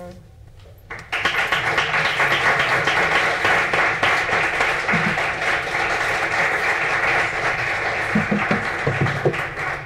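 Audience applauding a guest speaker's introduction, starting about a second in and dying away near the end.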